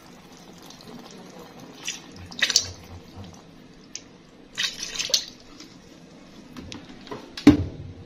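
Water dripping and splashing into the tub of wet laundry in an LG 16 kg top-load washing machine paused mid-rinse, with a couple of louder splashes. A sharp knock near the end, as the glass lid comes down.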